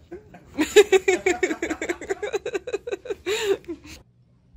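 A person laughing hard, a quick run of high giggles, broken off suddenly about four seconds in, leaving only a faint low hum.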